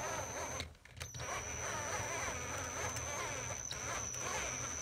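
Hand-held electric drill running as it bores a hole in a two-stroke engine crankcase, its motor pitch wavering under load over a steady high whine. The drill stops for a moment about a second in, then runs again.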